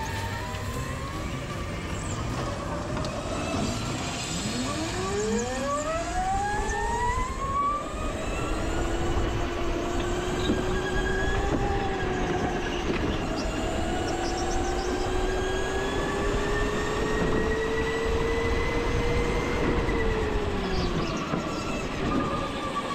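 Go-kart engine accelerating hard: its pitch climbs steeply about four seconds in, then holds a high whine that creeps slowly upward before easing off near the end, over steady rushing noise.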